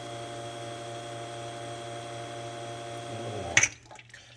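La Spaziale Vivaldi II espresso machine's pump running with a steady hum while extracting a double shot, then cutting off with a sharp click about three and a half seconds in as the shot is stopped.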